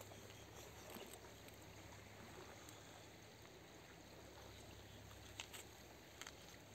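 Near silence: the faint, steady flow of river water, with two soft clicks near the end.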